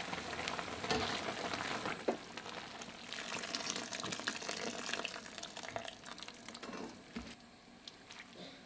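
Spicy broth with vegetables boiling in a pot, an even bubbling hiss with a few light clicks, dying down after about six seconds.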